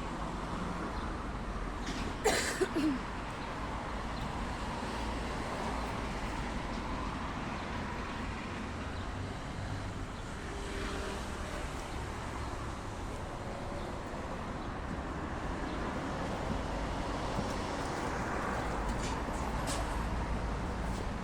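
Steady outdoor background noise with a low rumble like distant road traffic, broken by one short, sharp high sound with a falling pitch about two seconds in.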